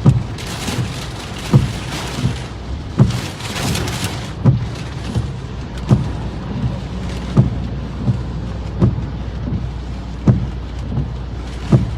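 Storm rain pelting a vehicle over a steady low rumble, heaviest for the first few seconds, with a short low thump repeating evenly about every second and a half.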